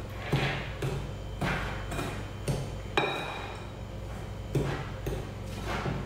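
A spoon knocking and scraping against a glass mixing bowl while stirring a thick banana, flour and sugar mixture, about two knocks a second. One knock about three seconds in leaves a brief ringing clink from the glass.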